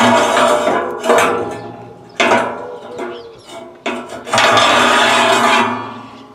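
Steel forge door sliding up and down in its steel channel guides, worked by a lever arm: grinding metal-on-metal scrapes with clanks, about four strokes, the longest near the end.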